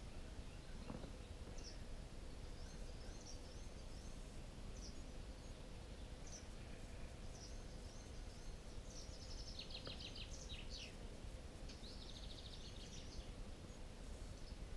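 Faint, high songbird chirps and two short rapid trills at scattered moments over a steady low background noise with a faint hum.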